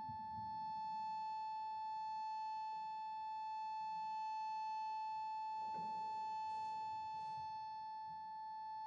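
A roughly 100-year-old pump organ (harmonium) holds a single sustained reed note, steady and unchanging. A couple of soft, short hissing noises come about six and seven seconds in.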